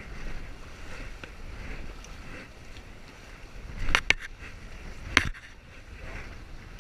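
Whitewater river rushing around a paddled raft as a steady noisy wash with a low rumble. Sharp loud knocks cut through about four seconds in, twice in quick succession, and once more a second later.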